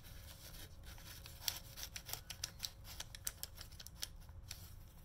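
Paper crinkling and rustling as a piece of aged letter paper is slid into a paper envelope pocket, a quick run of small sharp crackles starting about a second and a half in.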